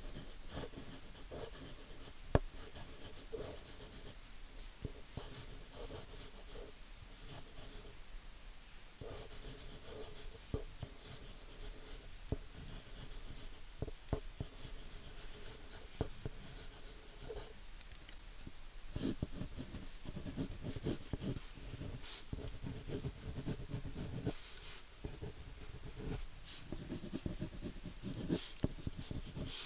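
Drawing sounds: a pen-like tool scratching and tapping on a drawing surface, with irregular sharp clicks, busier and louder in the second half.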